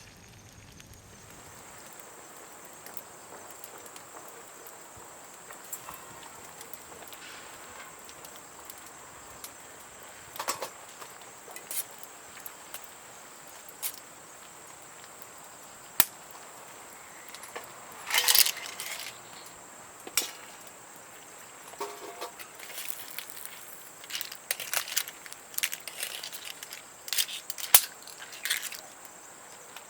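Sporadic clicks, knocks and scrapes of outdoor camp cooking by a wood fire, the loudest a sharp click about 16 seconds in and a scraping burst around 18 seconds, over a steady high-pitched insect trill.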